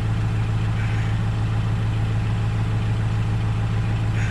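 An engine idling steadily, a low even hum with a regular pulse.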